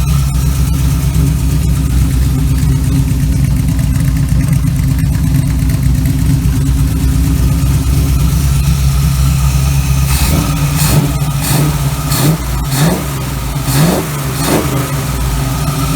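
Small-block Chevy 350 V8 running on a freshly rebuilt Holley four-barrel carburetor, idling steadily, then revved in several short throttle blips in the last few seconds.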